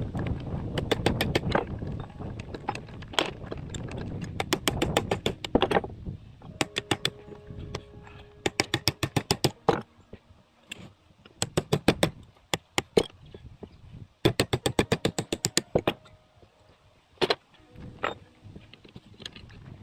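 Repeated runs of quick, sharp mechanical clicks, about ten a second, each run lasting one to two seconds, with pauses between. Low rumbling handling noise runs under them for the first few seconds.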